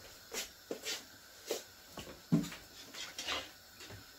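Fresh green onion stalks being snapped and torn by hand: a quick run of short, crisp snaps, with a duller knock a little over two seconds in.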